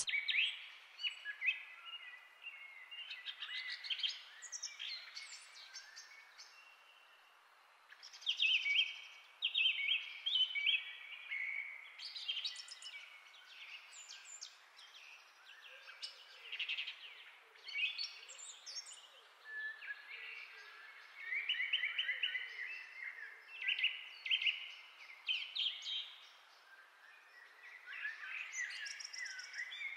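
Birds chirping and singing in short, repeated high-pitched phrases with brief pauses between them, over a faint steady hiss.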